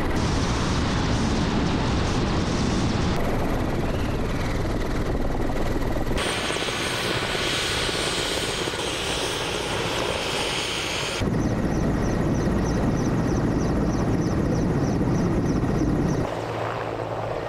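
Mi-8-type military transport helicopters flying low: steady turbine and rotor noise, heard from on board and from the ground as they pass. The sound changes abruptly several times, and in the later part a beat pulses about three to four times a second.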